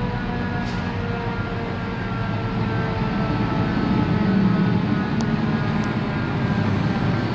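Steady drone of engines from traffic and idling vehicles, with a few steady whining tones over it, growing slightly louder toward the middle.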